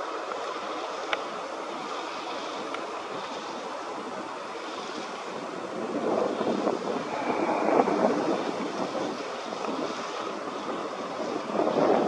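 Wind blowing over the microphone: a steady rushing that swells in gusts about six seconds in and again near the end.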